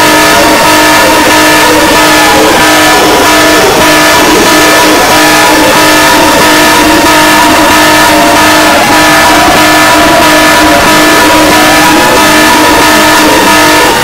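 Very loud, heavily distorted electronic emergency alert alarm: several steady tones held together, with wailing siren tones sliding slowly up and down among them, over harsh static hiss.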